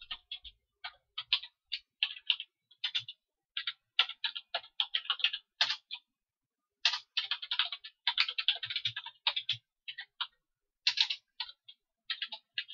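Typing on a computer keyboard: irregular runs of quick keystrokes, with a pause of about a second near the middle.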